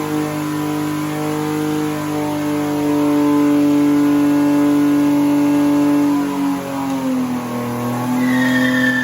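BMW E36 M3's straight-six engine held at high revs for several seconds, its pitch dipping about six seconds in. A short, high falling squeal follows near the end.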